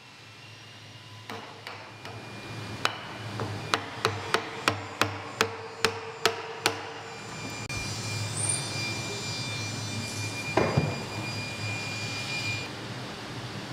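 Wooden mallet striking a chisel to chop a mortise in a new timber beam: about a dozen sharp blows, quickening to roughly three a second, then they stop. After that, steady workshop background noise with a faint high whine and a single thud.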